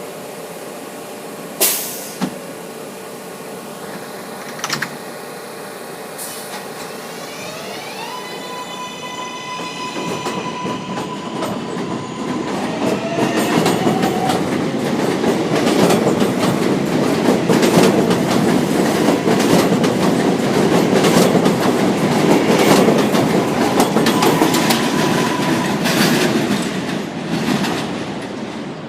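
R143 subway train pulling out: a sharp clank about two seconds in and another near five seconds, then the traction motors' rising, stepping whine. Rumble and clatter of wheels on rail then build as the cars pass, fading near the end.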